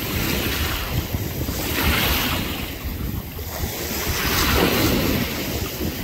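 Small sea waves washing and splashing around someone wading in the shallows, swelling twice, with wind rumbling on the microphone.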